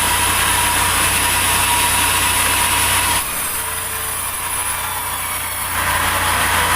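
Sawmill machinery running steadily while cutting durian wood. About three seconds in, the high part of the sound drops away suddenly, then comes back about two and a half seconds later.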